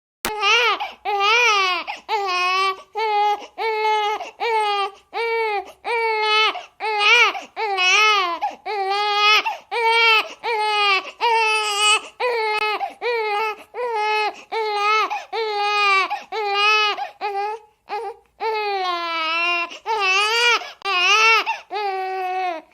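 Infant crying hard, a steady run of short wailing cries about one or two a second, each broken by a quick breath.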